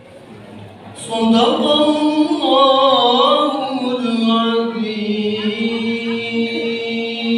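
A man's solo voice chanting unaccompanied through a handheld microphone. It comes in about a second in, winds up and down in pitch, then settles on a long held note.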